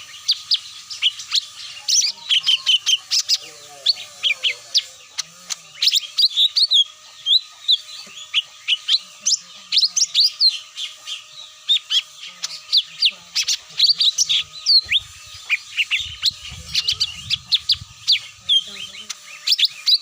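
Lure-call recording of cucak mini birds: a busy, unbroken stream of quick, high chirps and twitters, several a second, the call played to draw wild cucak mini down to a trap.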